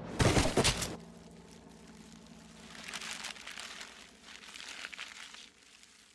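A suitcase packed with paper banknotes bursts open with a rapid crackling burst lasting about a second. Lighter papery crinkling and rustling follows as the notes flutter down, over a low steady hum.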